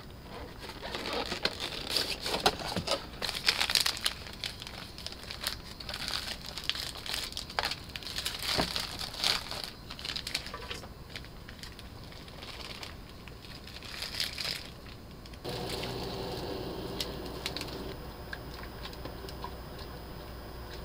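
Thin plastic packaging crinkling, rustling and tearing as a packaged yakisoba kit is unwrapped, in irregular bursts of crackle. For the last few seconds it gives way to a steadier, lower noise.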